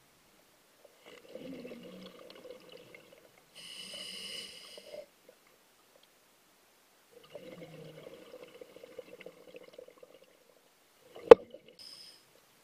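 A scuba diver breathing through a regulator underwater: a long bubbling exhale, a hissing inhale, then a second long bubbling exhale. Near the end there is a single sharp knock, the loudest sound, followed by the start of another inhale.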